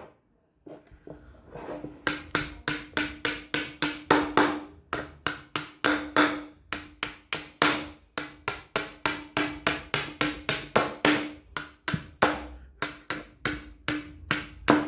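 A small hammer tapping repeatedly on a wooden object, about three knocks a second. Each knock rings briefly on the same note.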